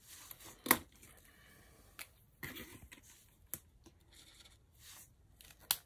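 Pen writing on paper planner pages: a faint scratching of strokes with a few sharp clicks and taps, the loudest about a second in.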